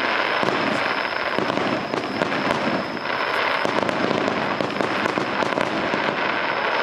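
Fireworks display going off in rapid succession: a dense, continuous crackle of many small bursts with no pause.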